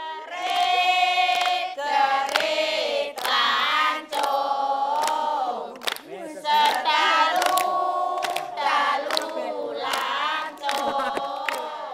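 Voices singing a Javanese folk-game song together in long, held phrases, with sharp claps or knocks at irregular points between the notes.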